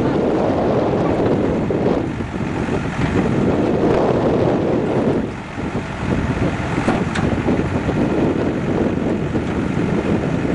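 Wind buffeting the microphone in gusts, over the steady running of a JCB backhoe loader's diesel engine as it works its boom to lift a carcass from the water.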